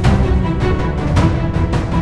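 Background music with a steady, driving beat.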